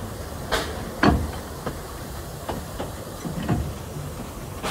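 Narrow-gauge steam locomotive running along the line, heard close up from just behind the engine: a steady rumble and hiss with a string of sharp, irregularly spaced exhaust puffs and knocks of wheels and couplings, the loudest about a second in.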